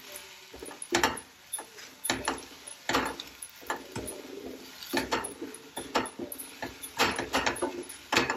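Wooden spatula scraping and knocking against a nonstick frying pan as sorrel leaves are stirred and sautéed down, in uneven strokes about once a second.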